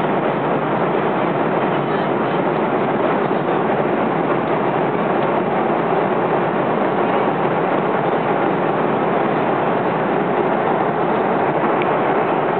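Steady airliner cabin noise in flight: the even rush of jet engines and airflow, with no change in level.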